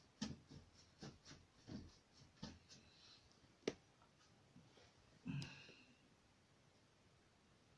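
Faint taps and clicks of a paintbrush against a plastic paint palette and canvas, with one sharp click a little under four seconds in, then a short breath about five seconds in.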